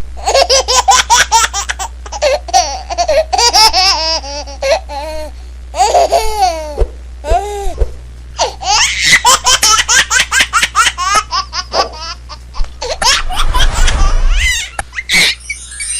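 A baby laughing hard in fast runs of high-pitched giggles, broken by short pauses between fits, over a steady low hum.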